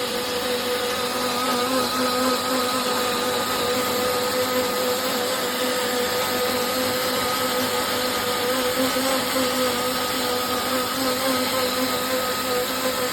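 High-power jug blender motor running steadily at high speed, with a constant whine.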